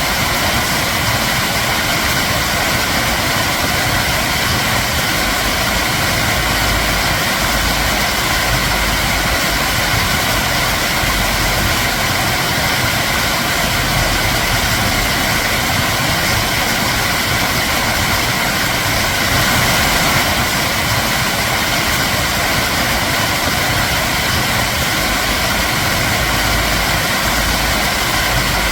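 Flowing water rushing steadily: a loud, even, unbroken noise.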